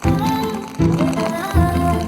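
Background music: a melodic instrumental track with a bass, new notes striking about every three quarters of a second.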